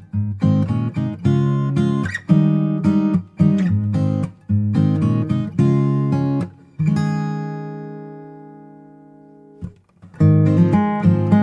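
Background music: strummed acoustic guitar chords. About seven seconds in, one chord is left ringing and fades away, and after a short break the strumming starts again near the end.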